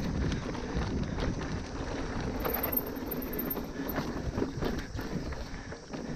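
Mountain bike running down a rough dirt trail: wind buffeting the camera microphone, tyres on loose ground, and frequent rattling knocks as the bike hits bumps.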